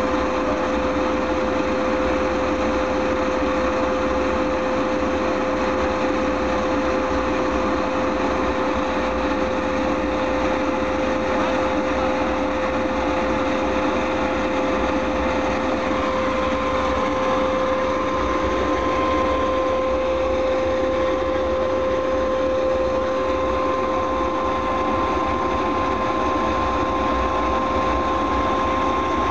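Klimov VK-1 centrifugal-flow turbojet engine running steadily: a constant whine over a dense rush of engine noise. About halfway through, a second, higher whine sets in.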